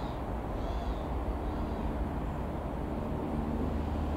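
Single piston engine of a Robin R3000 light aircraft droning steadily over a low rumble, with a faint engine hum that firms up after the first second. A bird chirps twice in the first second.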